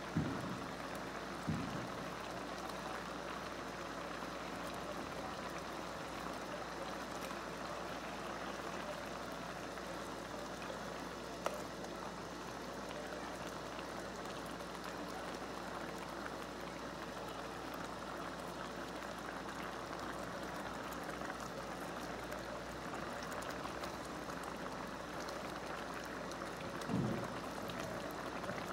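Hotpot broth and rice simmering into beef congee in a clay pot, a steady bubbling hiss. The metal ladle gives a few dull knocks against the pot about a second in and again near the end.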